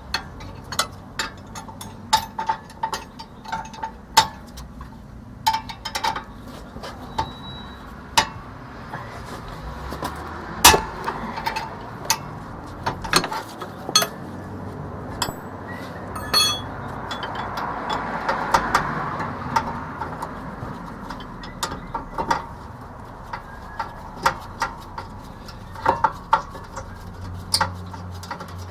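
Metal clicks and clinks of a 19 mm socket wrench working loose the lower caliper bracket bolt on a rear brake. The clicks come irregularly, one to a few a second, with a spell of rubbing and scraping about two-thirds of the way in.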